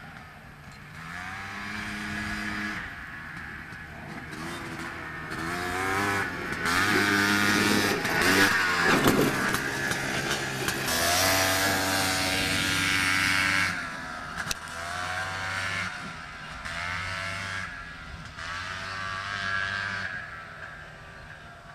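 Air-cooled single-cylinder four-stroke engine of a Honda FL350R Odyssey dune buggy revving up through its gears in repeated rising steps as the buggy drives past, loudest about nine seconds in. It then fades in surges as the buggy pulls away across the field.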